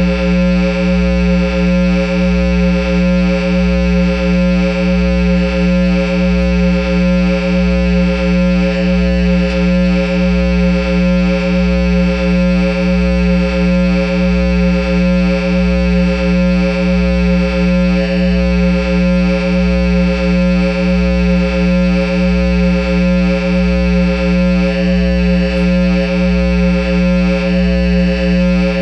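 Line 6 amplifier head and Peavey speaker cabinet sounding a loud, unchanging electronic drone: a dense chord of steady tones over a deep hum, with the low end throbbing about three times every two seconds.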